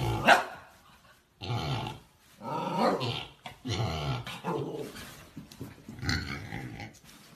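Husky puppy growling in play: a string of about five short growls, each under a second, with short pauses between.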